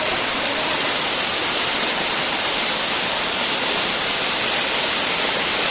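Damtua waterfall's water falling: a steady, unbroken rush of water with a strong hiss.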